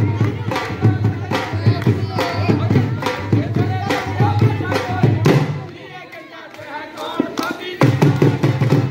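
Punjabi festive music: a dhol drum beating a fast steady rhythm under group singing. The drumming falls away for about two seconds past the middle, then the dhol comes back in loudly near the end.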